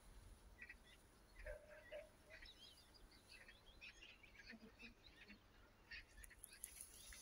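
Faint birdsong: many short, scattered chirps from small birds, with a low rumble at times.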